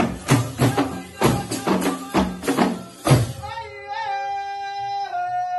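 Rwandan traditional ingoma drums beating a fast even rhythm under group singing; about three seconds in the drums stop and voices hold a long high sung call, a second voice lower beneath it.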